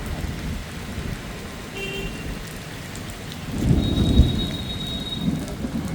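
Heavy rain falling in a storm, a steady hiss and patter. A deeper rumble swells for about a second, a little past the middle.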